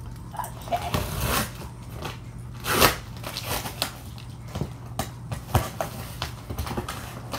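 Packing tape being cut with scissors and torn and peeled off a cardboard box: scratchy ripping, crackling and clicks, with one louder tear about three seconds in.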